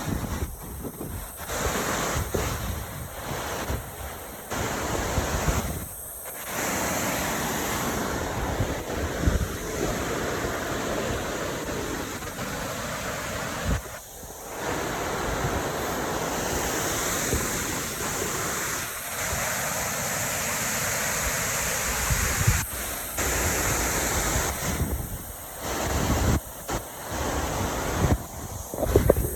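Steady rushing of water falling at a partly frozen waterfall, with wind buffeting the microphone.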